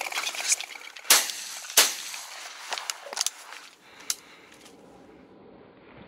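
Grey partridges flushing with a whirr of wings, then two shotgun shots about two-thirds of a second apart, followed by a few lighter clicks.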